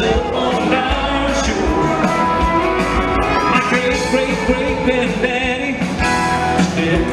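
Live country band playing: electric guitar and a singing voice over a steady beat.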